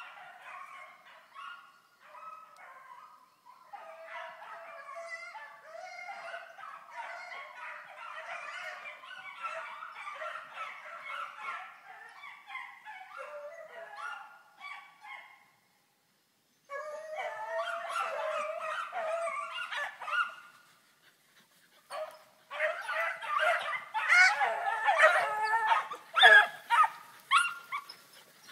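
A pack of rabbit-hunting dogs baying together on a rabbit's trail, many overlapping cries, with two short breaks and louder in the last few seconds.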